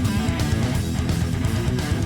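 Music led by strummed electric guitar.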